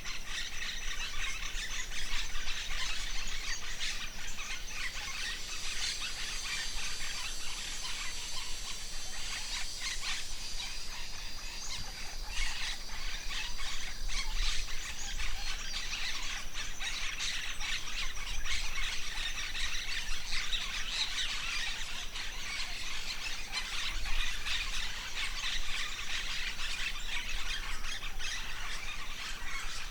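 Many birds chirping and calling at once, a dense run of quick high calls, over a steady high-pitched insect drone.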